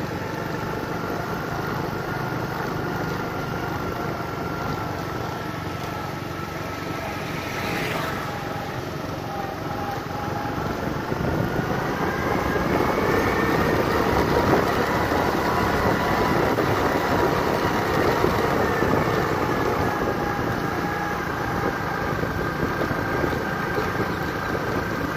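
Motor vehicle driving across a steel truss bridge's road deck: a steady engine hum with a few slowly drifting tones over road noise, growing louder about halfway through.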